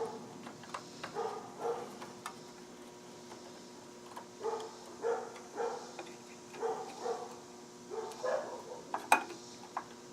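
A dog making short calls, often two close together, over a steady electrical hum, with a few sharp clicks; the loudest click comes near the end.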